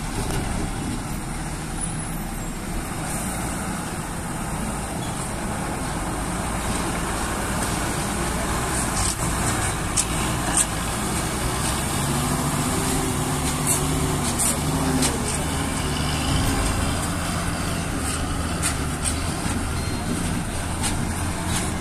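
Loaded diesel truck pulling up a slope as it drives past, its engine a steady low drone that grows strongest about halfway through.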